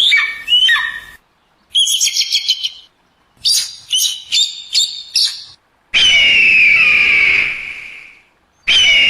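Eagle calls: a run of high, sharp, falling chirps, a quick burst of short piping notes, more chirps, then two long descending screams, the first about six seconds in and the second near the end. The calls are separated by abrupt silent gaps.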